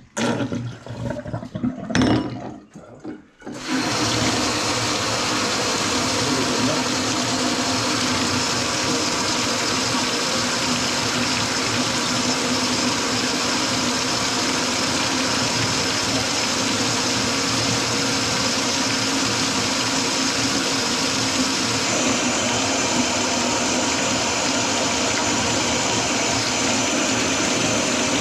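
A few short knocks, then a kitchen faucet running at full flow into a stainless steel sink, a steady rush of water. The sink's drain is clogged with grease.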